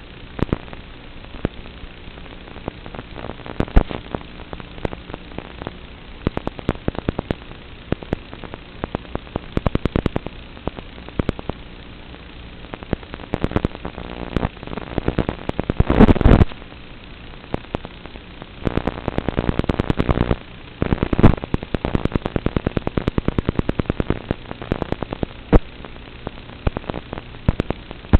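Analog FPV video-receiver audio recorded by the goggle DVR: a steady static hiss with a faint hum, broken by bursts of sharp crackling pops, heaviest about halfway through and again a few seconds later, typical of the analog video signal breaking up.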